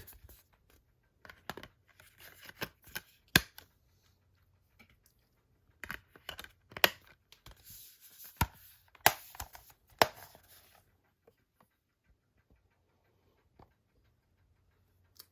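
Hands handling a metal Blu-ray steelbook case: scraping and rustling with several sharp clicks, the loudest a few seconds in and again near the middle, then almost nothing for the last few seconds.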